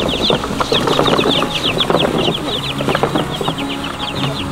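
Chickens: a constant stream of short, high, falling peeps, typical of young chicks, over lower clucking.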